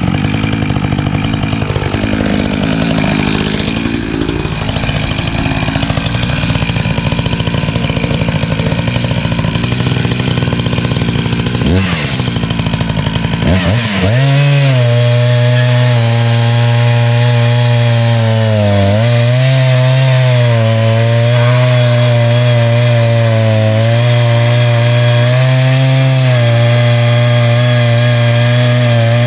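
Echo CS-590 Timberwolf two-stroke chainsaw running hard with a ripping chain, milling a cedar log lengthwise into boards. The engine note is rough and dips at first, then about thirteen seconds in it settles into a steadier, clearer pitch that wavers slightly.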